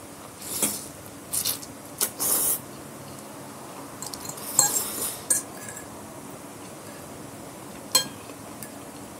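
Noodles being slurped in several short noisy bursts, mixed with metal cutlery clinking against a glass bowl; one sharp clink near the end.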